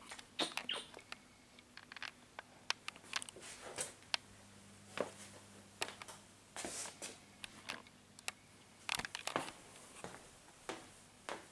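Irregular soft clicks, taps and rustles from someone moving about with a handheld camera, over a faint steady hum.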